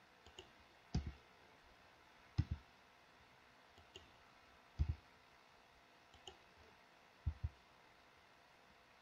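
Computer mouse and keyboard clicks: four louder paired clicks, each with a dull knock, spaced a second or two apart, and fainter single clicks between them.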